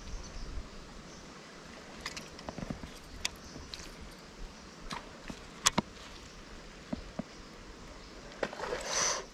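Faint scattered clicks and taps while a topwater surface-walker lure is worked across a shallow creek pool. Near the end comes a short splashing rush, which fits an Australian bass striking at the lure and missing it.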